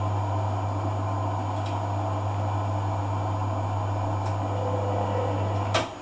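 Hoover AC166 Classica 1200 washing machine running its cotton rinse with a steady hum, typical of the drain pump emptying the drum. There are faint ticks partway through, and the hum cuts off with a sharp click near the end.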